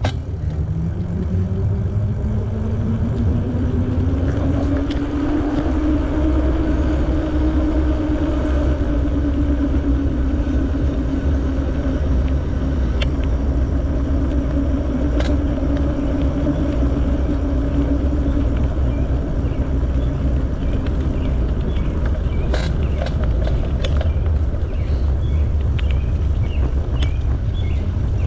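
Riding noise from a bicycle on the move: heavy wind rumble on the microphone with a hum that rises in pitch over the first few seconds as the bike gathers speed, then holds steady and fades out near the end.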